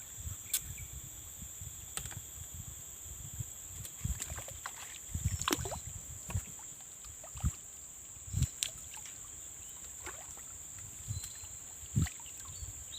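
Crickets chirring steadily at a high pitch, with scattered splashes and knocks in the water, a few of them louder.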